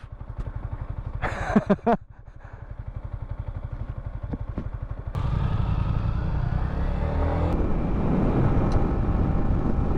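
Yamaha MT-15's single-cylinder engine idling with an even beat, then pulling away about five seconds in, its revs rising for a couple of seconds before settling into steady riding. A brief burst of voice comes about a second and a half in.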